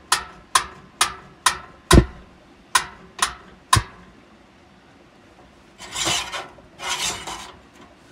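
Camping gas stove's igniter clicking repeatedly to light the burner, about nine clicks at roughly two a second. Then come two short bursts of hiss as the burner catches and the chorizo in the pan starts to sizzle.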